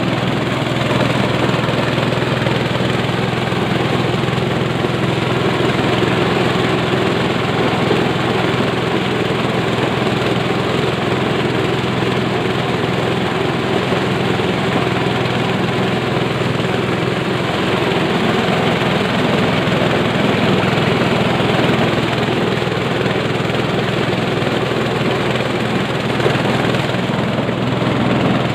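Engine-driven corn sheller running steadily while shelling ears of corn: a loud, constant engine drone with a low hum, unchanging throughout.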